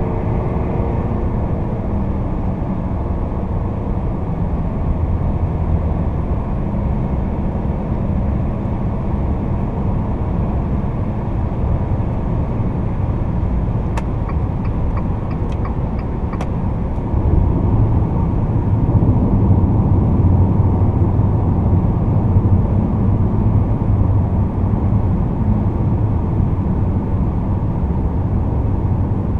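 Inside the cabin of a Fiat Toro 2.0 turbodiesel pickup cruising at about 100 km/h: steady low engine and tyre rumble, which grows louder a little past halfway. A few light clicks sound about halfway through.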